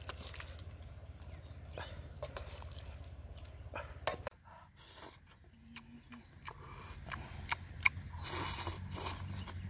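Light clicks and scrapes, then, after a sudden change about four seconds in, a man eating boiled pig leg and banana flower: wet biting and chewing mouth sounds, loudest near the end.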